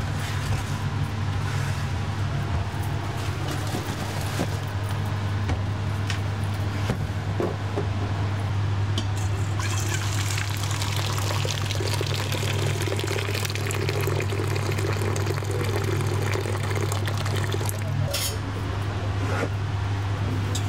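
A steady low mechanical hum with a hissing, liquid-like noise over it that grows stronger about halfway through.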